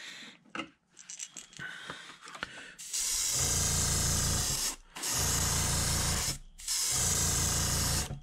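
Airbrush, turned down to low pressure, spraying in three short passes of hissing air, each about a second and a half long, starting about three seconds in. Faint clicks of handling come before the first pass.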